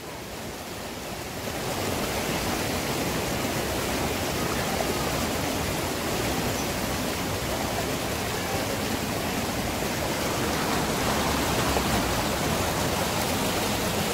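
Shallow, fast-flowing river rushing over rocks, a steady rushing noise that grows louder about a second and a half in.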